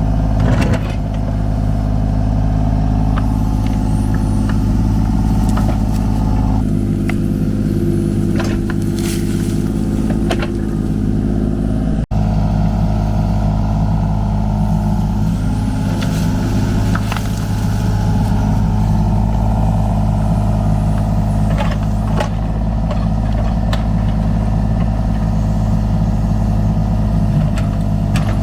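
Kubota U35-4 mini excavator's diesel engine running steadily under working load, with scattered clanks through the dig.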